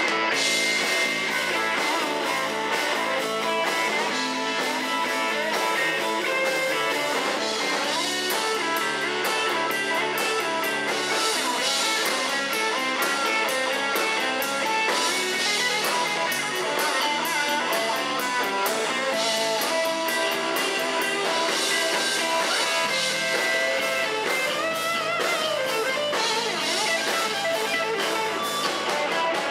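Live band playing an instrumental passage with no vocals: electric guitar to the fore over electric bass and a drum kit, keeping a steady rock/blues groove.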